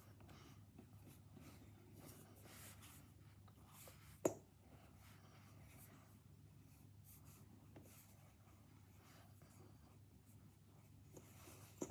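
Near silence with faint scratchy rustling and one sharp click about four seconds in.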